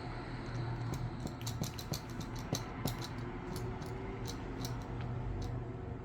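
A run of small, sharp clicks and ticks, densest between about one and three seconds in, over a steady low hum.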